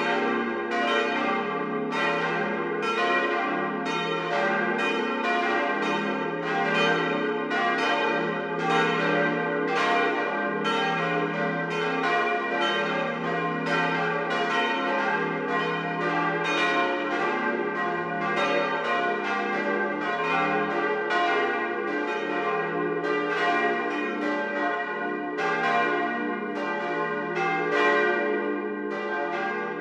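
Full peal of four steel church bells cast by the Böhler works in Kapfenberg, swinging together. Their strikes overlap, a few each second, in an uneven rhythm with long ringing tails.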